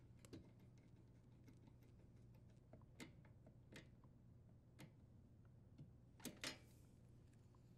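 Mostly near silence with a few faint, scattered clicks and taps of metal parts: the brass fitting of the water supply line being threaded onto the dishwasher's inlet valve and tightened. The strongest are two close clicks about six and a half seconds in.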